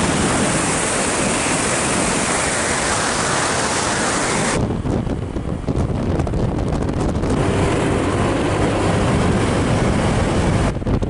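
Wind rushing over the phone's microphone while riding pillion on a moving motorcycle, mixed with the rumble of the bike and road. About halfway through the high hiss cuts off suddenly, leaving a lower, crackling rumble.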